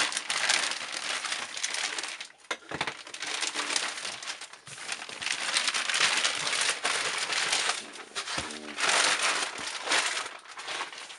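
Plastic packaging bag being handled, crinkling and rustling in irregular surges, with a short squeak about eight seconds in.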